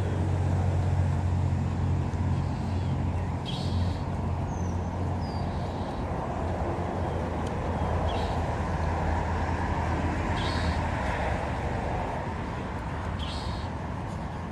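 A motor vehicle's engine running with a steady low hum that fades out about eleven seconds in, over street traffic noise. Small birds give short high chirps now and then.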